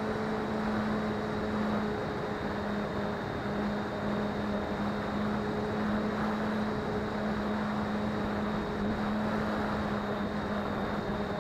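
Electric motor and propeller of an FPV model airplane in flight, heard from its onboard camera: a steady hum at one pitch over wind rush on the microphone.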